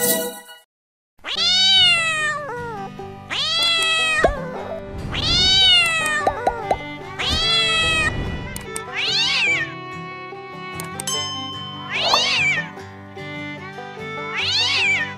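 Domestic cat meowing repeatedly, about seven drawn-out meows, each rising then falling in pitch, over background music.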